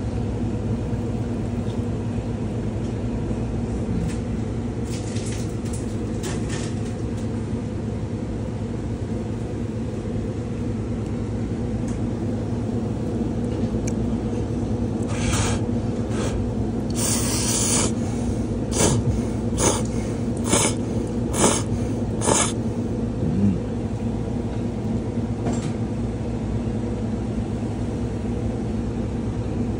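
Steady low machine hum of a ramen shop. About halfway through comes a run of short sharp noises, roughly one a second.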